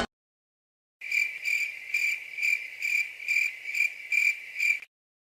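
Crickets chirping in a steady rhythm of about two chirps a second, starting after a second of silence and cutting off suddenly near the end: the stock 'crickets' sound effect used as a gag for an awkward silence.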